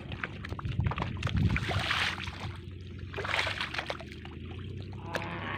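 Shallow muddy water splashing and sloshing as hands grope through it and feet wade, with a couple of louder splashes about two and three and a half seconds in.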